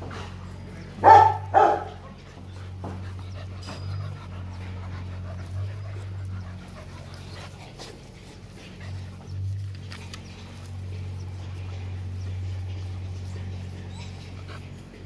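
Rottweiler puppy barking twice about a second in, then quieter scuffling of puppies at play, over a steady low hum.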